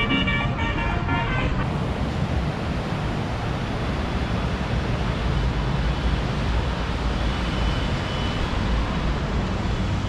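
Steady rush of river rapids flowing over rocks, heard from a bridge above. For about the first second and a half a brief pitched sound sits over it.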